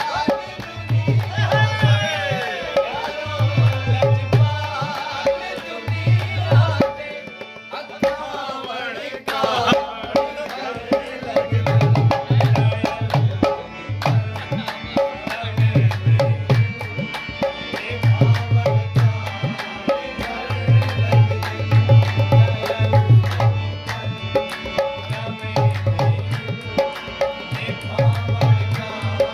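Live song: a man singing over a harmonium, with a hand drum keeping a steady rhythm of deep strokes. The voice holds long gliding notes through the first ten seconds or so, then the harmonium and drum carry on under shorter vocal lines.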